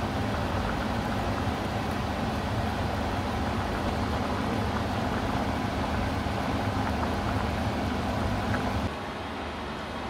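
A large stockpot of vegetables and sausages at a rolling boil: a steady bubbling rumble with a low hum under it. About nine seconds in it gives way to quieter room tone.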